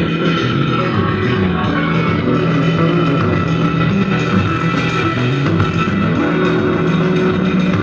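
A rock-style song with guitar, bass and drums played loudly and continuously through a speaker. The speaker is driven by a single-channel mono amplifier board built on 5200-series power transistors, under a sound test.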